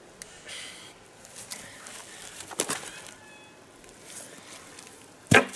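Quiet woodland ambience with scattered sharp clicks and snaps, the loudest about two and a half seconds in, and a few faint high chirps about three seconds in. A short, louder sound comes near the end.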